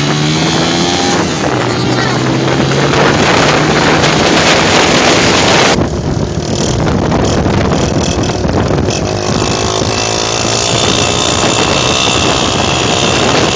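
Honda CG 125 motorcycle's single-cylinder four-stroke engine running loudly through a modified, pre-2013-style silencer, with wind noise on the microphone. The sound changes abruptly about six seconds in.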